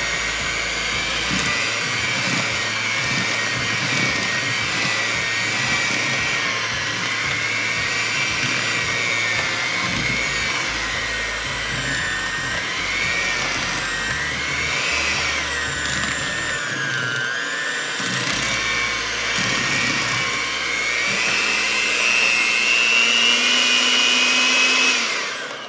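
Hamilton Beach electric hand mixer running on slow speed, its beaters mixing flour into cookie dough in a plastic bowl. The motor whine wavers in pitch as the beaters drag through the dough, climbs in pitch near the end, then cuts off.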